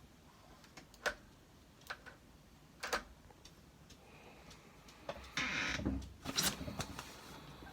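Hand work on door-lock hardware: single sharp clicks and knocks about one, two and three seconds in, then a short spell of scraping and clicking between about five and seven seconds.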